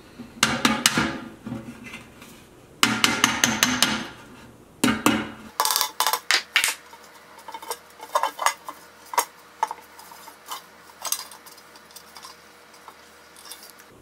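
Body hammer tapping dents out of a thin copper tea kettle from the inside: quick clusters of sharp metallic strikes, one fast run of about eight near three seconds in. After about seven seconds the strikes give way to quieter scattered pings and clicks as the copper is pushed out by hand.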